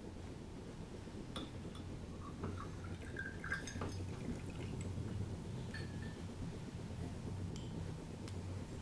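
Quiet room tone with a steady low hum and a few faint clinks and taps of china and glassware, the clearest about three and a half seconds in.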